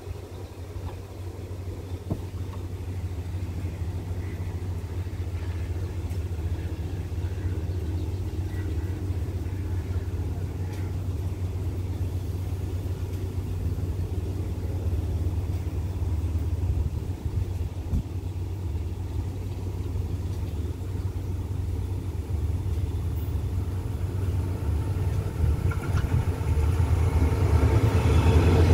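Diesel locomotive engine running with a steady low rumble, growing louder over the last few seconds as an oncoming diesel-hauled express train draws near on the next track.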